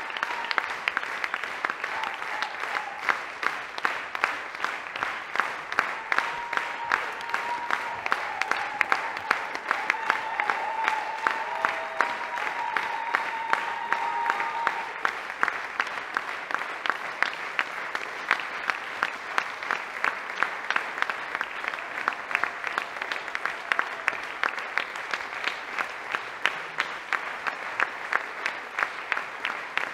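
Large theatre audience applauding, the clapping falling into a steady rhythm of sharp beats.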